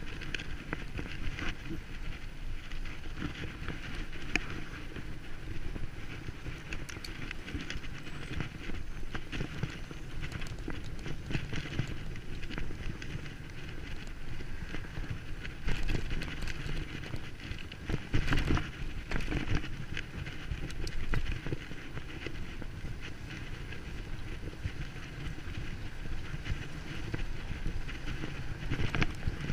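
Bicycle ridden over rough ground: continuous rattling and rolling noise with irregular knocks, a few louder jolts about halfway through.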